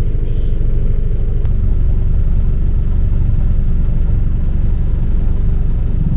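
A running motor's loud, steady low rumble, holding an even pitch.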